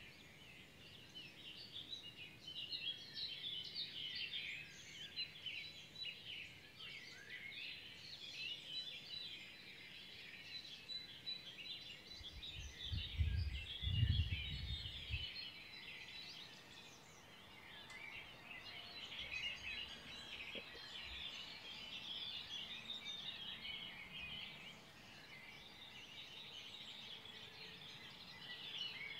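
Spring dawn chorus: many songbirds chirping and singing at once, with calls overlapping continuously. About halfway through, a low rumble swells for a couple of seconds under the birdsong.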